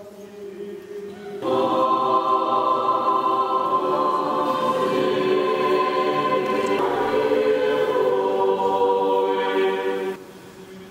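Orthodox church choir singing liturgical chant in long held chords, loud from about a second and a half in until it breaks off near the end; a quieter held chant sounds before and after.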